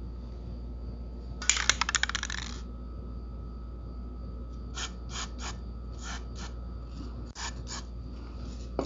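A removed lawn mower wheel and a tube of lubricant being handled while the wheel bearing is greased by hand. A rapid run of clicks lasts about a second, starting about a second and a half in. About eight short scrapes follow in the second half.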